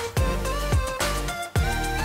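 Background music with a steady drum beat under held notes.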